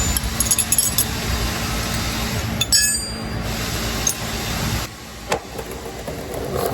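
A machine hums steadily, then cuts off about five seconds in, with light metallic clinks of tools or parts.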